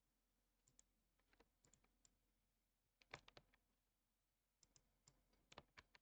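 Faint scattered clicks from a computer mouse and keyboard, coming singly and in small quick clusters, with a denser group about three seconds in and another near the end.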